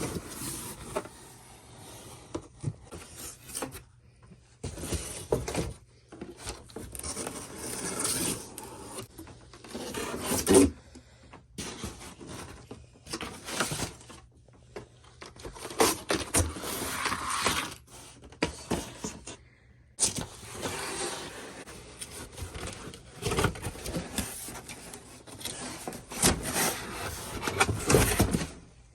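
A package being unboxed by hand: cardboard and wrapping scraping and rubbing in irregular bursts, with short pauses between them.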